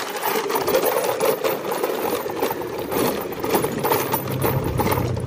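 Bike tyres rolling over loose gravel, a continuous crunching and rattling; a low engine hum comes in about three and a half seconds in.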